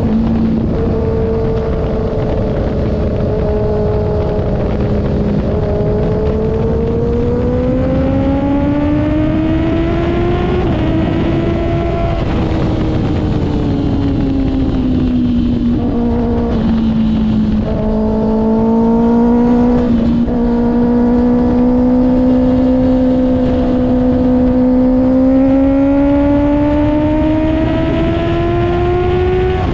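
Kawasaki ZX-6R's inline-four running through an IXIL aftermarket exhaust, held at steady revs with its pitch slowly rising and falling over several seconds at a time.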